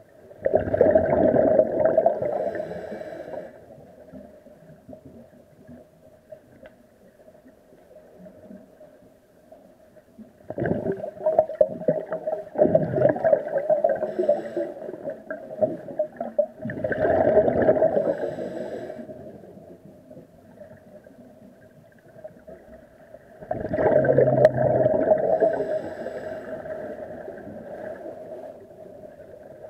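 A scuba diver's exhaled breath bursting from the regulator underwater as a rush of bubbles, four times, each lasting two to three seconds, in a slow breathing rhythm about every six to seven seconds. A steady faint hum runs underneath.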